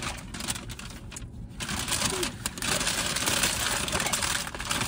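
Paper takeout bag being handled, rustling and crinkling loudly for a few seconds from about one and a half seconds in.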